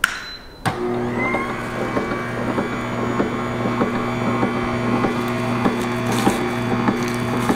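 AMZ Chef cold press (slow masticating) juicer switched on with a click a little under a second in, then its motor running with a steady hum and small irregular ticks as the auger turns and leafy greens are dropped into the feed chute.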